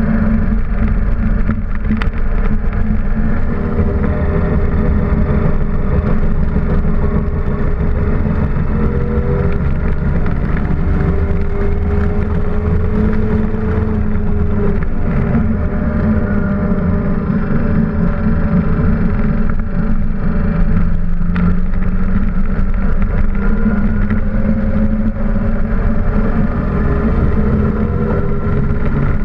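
Datsun 260Z/280Z race car's straight-six engine under load at track speed, heard from inside the stripped, caged cabin. The revs climb and drop back several times as the car is driven.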